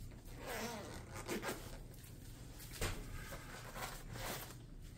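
Zipper on a soft telescope carry bag being pulled open in several short strokes.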